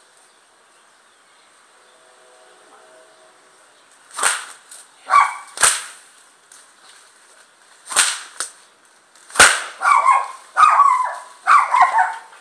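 Bullwhip cracking several times, sharp single cracks a second or more apart, the loudest about nine seconds in. A dog barks repeatedly over the last few seconds.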